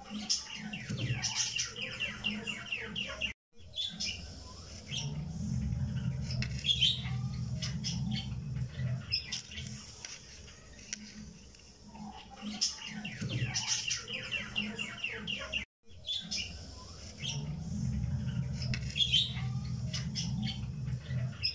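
A looped background track of bird chirps over a low steady hum. The same stretch repeats about every twelve seconds, with a brief cut to silence at each seam.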